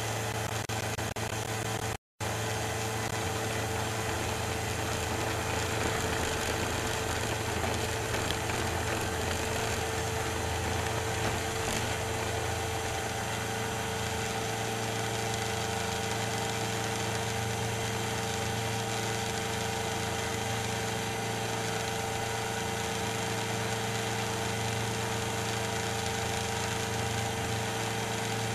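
Challenger II ultralight's engine running steadily at power through the takeoff and climb-out, recorded from a camera on the aircraft, with a brief audio dropout about two seconds in.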